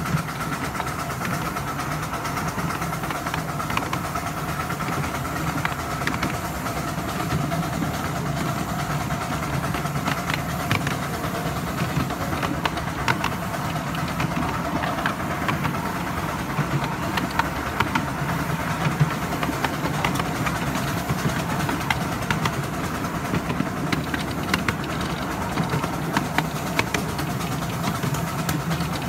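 A 7¼-inch gauge miniature steam railway train running steadily along its track, heard from aboard: a continuous rumble of wheels on rail with a steady whine and frequent sharp clicks.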